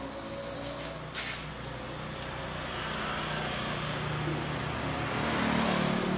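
Mitsubishi sewing machine running with a steady motor hum, and a single sharp click about a second in.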